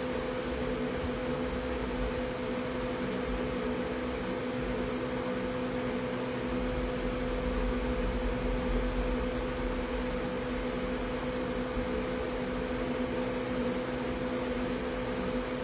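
Steady machine hum at two pitches over a constant hiss, with a low rumble that grows stronger about six seconds in.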